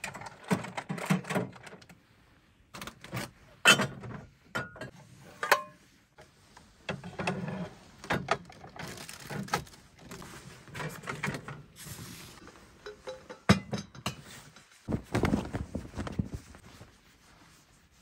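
Irregular knocks, thuds and rustling of things being handled and set down in a small room, several sharp knocks standing out.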